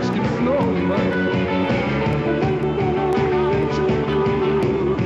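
Rock band playing live, with drums and a long held note through the second half.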